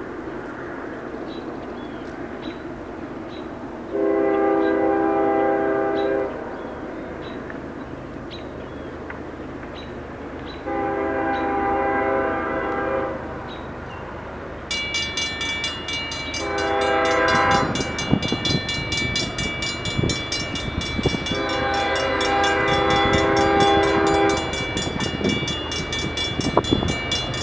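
GE ES44DC diesel locomotive horn sounding the grade-crossing signal: two long blasts, a short one, then a long one. A crossing bell starts ringing about halfway through, and the rumble and clatter of the approaching freight train builds toward the end.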